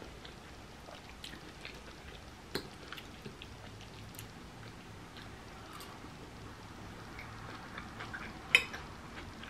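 Close-up chewing of pasta salad, with scattered small wet clicks and crackles from the mouth and the clink of a metal fork against a ceramic bowl; the sharpest clink comes near the end.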